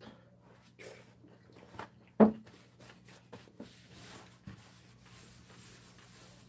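A few light clicks and a sharp knock on the table about two seconds in, then a tissue being rubbed across a wooden tabletop, a steady brushing hiss over the last couple of seconds.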